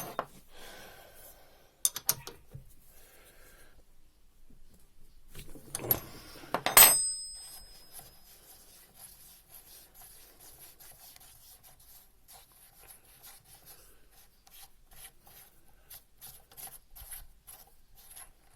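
Metal tools clicking and scraping on a Bosch common rail injector as its nozzle nut is unscrewed, with one sharp metallic clank and brief high ringing about seven seconds in, then faint repeated rubbing strokes.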